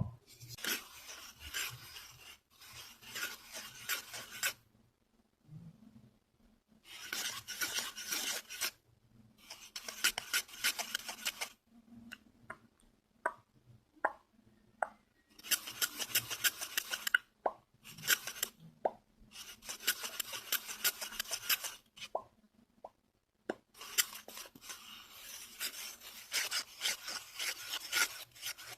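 Close-up ASMR scratching: fast, dense scratch strokes in spells of two to four seconds, with short pauses in which a few single sharp pops sound.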